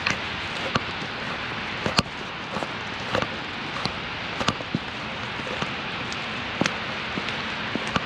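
Street ambience in a wet snowstorm: a steady hiss of falling precipitation, broken by irregular sharp ticks and taps about once or twice a second.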